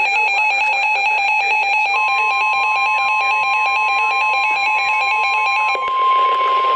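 NOAA Weather Radio emergency alert tones: a fast, evenly repeating electronic tone pattern. About two seconds in, a single steady warning tone joins it and holds to the end, marking a warning broadcast. The repeating pattern cuts off about a second before the end.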